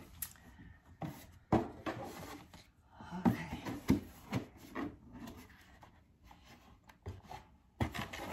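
Cardboard gift box being unwrapped and opened by hand: a ribbon pulled off, the box handled and its lid lifted, giving scattered rubbing and scraping with a few light knocks.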